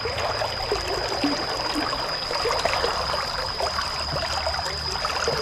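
A small stream's water running and trickling steadily.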